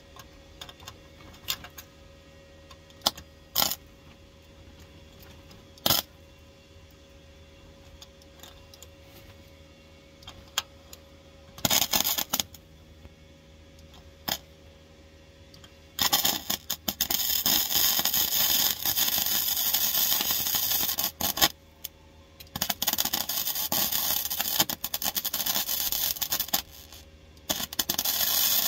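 MIG welder arcing on the steel floor pan of a car: a few short crackling zaps, tack welds, in the first half, then long runs of steady crackle past the halfway point, broken by brief pauses.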